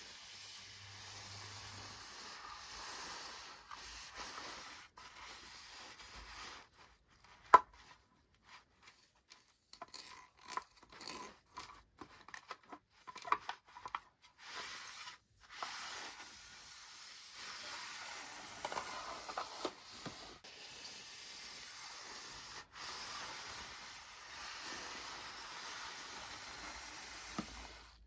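Plastic toy packaging being handled, rustled and torn open, with bursts of small crinkles and clicks. One sharp snap, the loudest sound, comes about seven and a half seconds in.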